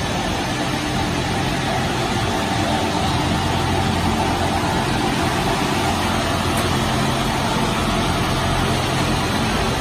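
PP hollow sheet extrusion line running: steady machine noise with a low hum.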